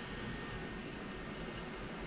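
Steady background hiss and hum of room tone, with a faint steady high tone running through it.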